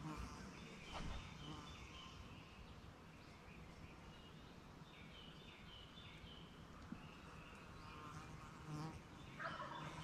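Wild turkey gobbler gobbling faintly, a rapid rattling call, loudest near the end.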